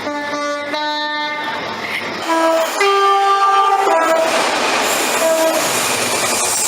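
Train horn sounding several two-tone blasts, each switching between a lower and a higher note. In the last few seconds a loud rushing noise of a train takes over, with one more short horn note.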